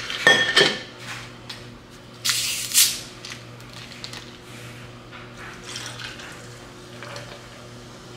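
A plastic tumbler lid is pulled off with a short clack. About two seconds later comes a brief fizzing hiss as a plastic bottle of Coca-Cola is twisted open and its carbonation escapes, then only a faint steady hum.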